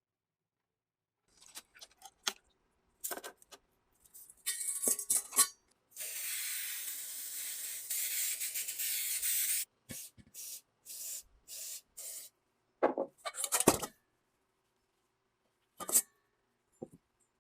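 Hissing spray, one long burst of about four seconds followed by several short bursts, among scattered clicks and knocks.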